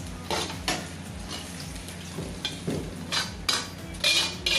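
Metal spatula scraping and knocking against a wok as food is stir-fried, in short irregular strokes over a low sizzle.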